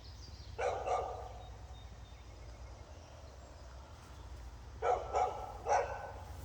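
A dog barking: two quick barks about a second in, then three more near the end.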